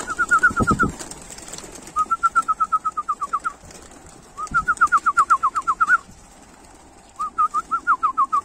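Young racing pigeons' wings clapping as they take off from the loft, heard as a few low thumps about half a second in. A high, rapid trill of clipped falling notes, about eight a second, comes in four bouts of a second and a half each and is the loudest sound throughout.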